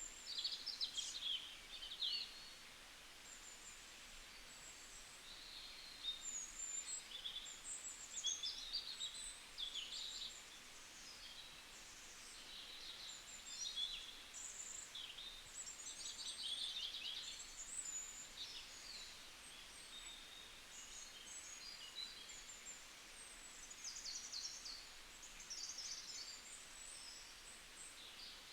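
Several small birds singing and chirping at once, quick overlapping trills and twitters over a faint steady outdoor hiss.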